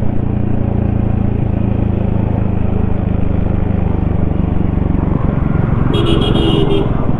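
Yamaha XSR155's single-cylinder engine and exhaust running at a steady cruise. About five seconds in, the even engine note loosens and changes, and a short tonal sound, like another vehicle's horn, sounds near the end.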